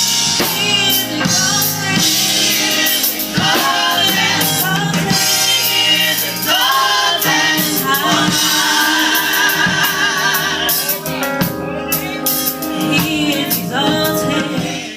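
Gospel music: voices singing, with vibrato, over a drum kit and band.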